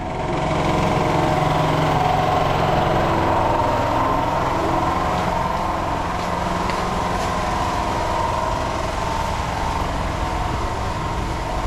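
Several generators running together, a steady loud engine drone.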